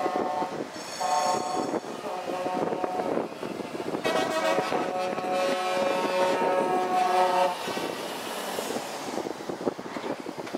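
Lorry air horns sounding as trucks drive past: a short blast about a second in, then a long multi-tone horn chord from about four to seven and a half seconds, over the noise of the passing trucks.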